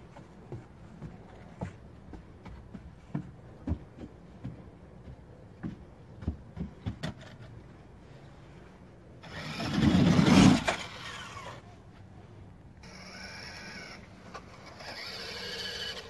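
Light knocks and taps of a child's steps on a wooden playground ramp, then a loud rush of noise about nine seconds in lasting about two seconds. Near the end, a toy RC monster truck's small electric motor whirs steadily as its wheels spin in sand.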